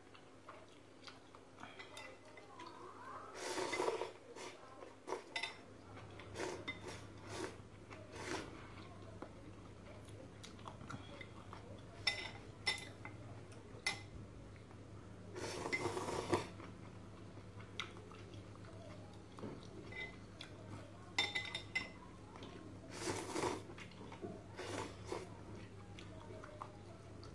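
Blue crayfish crunching dry ramen noodles: scattered sharp clicks and crackles with a few longer crunching bursts, over a steady low hum.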